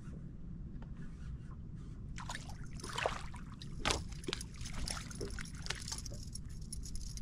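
Water sloshing and splashing as a hooked striped bass thrashes at the surface beside the boat, with irregular splashes from about two seconds in, the loudest near the middle, over a steady low rumble.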